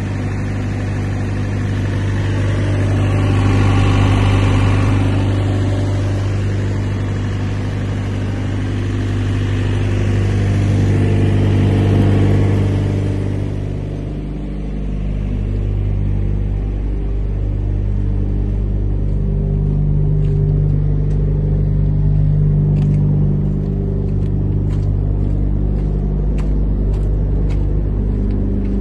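Thermo King SLX 200 trailer refrigeration unit running: a steady engine hum with a rush of fan air, loudest in the first half and fainter after about 14 seconds. Light ticks come in over the last few seconds.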